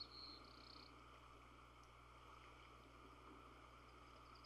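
Near silence: a faint steady low hum, with a faint, rapid high-pitched trill just at the start and again near the end.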